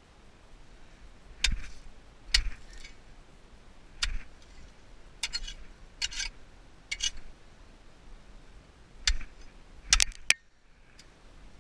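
A tool chipping at ice: around ten sharp, separate blows at irregular intervals, with a quick double strike near the end.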